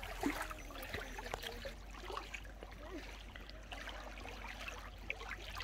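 Lake water lapping and trickling gently, with faint distant voices now and then.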